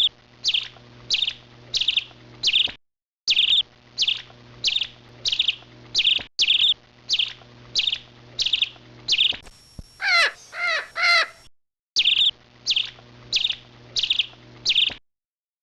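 Bird calls repeated about twice a second, short and harsh. Around two-thirds of the way through they are interrupted by a different call that sweeps up and down in pitch. The sound cuts out abruptly several times.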